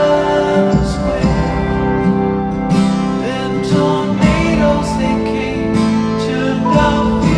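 Background music: a song with acoustic guitar and a singing voice over a steady beat.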